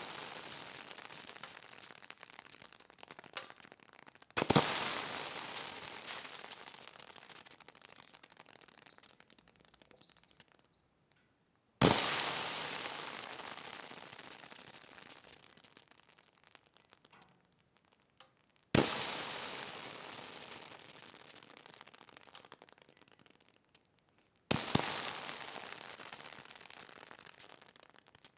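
Water sizzling on a hot surface: four times it starts suddenly with a loud hiss and crackle, then dies away over several seconds, with the tail of an earlier sizzle fading at the start.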